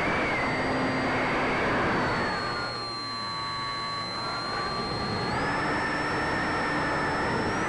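Sky Surfer RC glider's electric motor and propeller whining over a steady rush of air on the onboard microphone. The whine drops in pitch a couple of seconds in and climbs back up about five seconds in.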